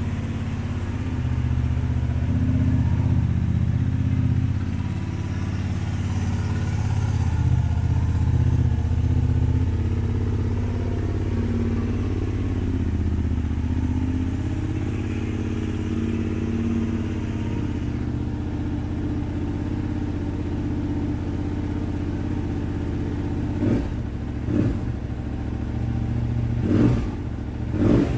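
Honda VTR250's 90-degree V-twin idling steadily through a Moriwaki aftermarket muffler, then four quick throttle blips in the last five seconds.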